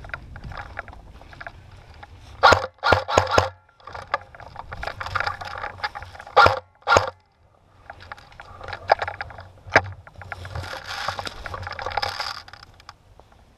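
Footsteps crunching and shuffling through dry leaf litter and brush. A cluster of louder sharp crunches or knocks comes a few seconds in, and two more come near the middle.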